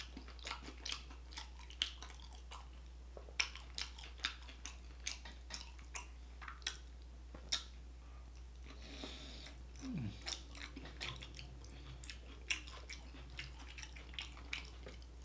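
Close-miked mouth sounds of a man chewing a mouthful of burrito: irregular wet smacks and clicks of the lips and tongue, several a second, with a short hum falling in pitch about ten seconds in.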